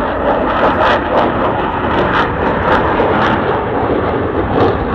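Su-27 jet fighter's twin afterburning turbofan engines heard in flight: a loud, steady jet noise with repeated short crackles.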